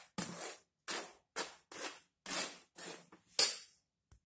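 A spoon scraping dry cake mix through a steel mesh sieve in short strokes, about two a second, with one louder metallic clink against the sieve about three and a half seconds in.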